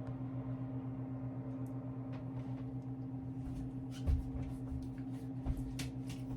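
Handling noise from 78 rpm records being moved about: light clicks and rustles from about halfway in, with a soft thump about four seconds in, over a steady low electrical hum.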